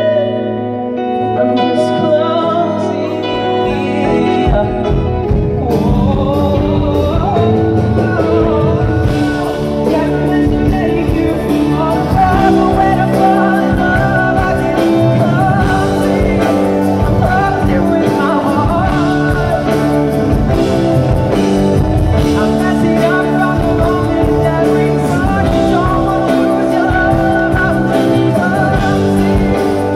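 A male singer singing a pop-rock song live with a band through a PA system during a sound check. Drums come in a few seconds in and keep a steady beat under the vocal.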